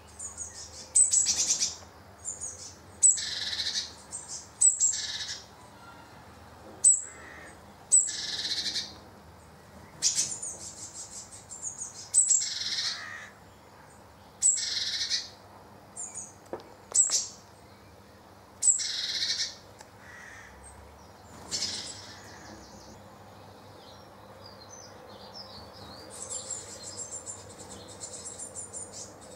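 Tit nestlings begging from inside a metal ashtray used as a nest: about a dozen loud, hissy bursts of begging calls, each under a second long, coming every second or two. After about twenty-two seconds the bursts stop, and near the end a fainter, fast high chittering comes in.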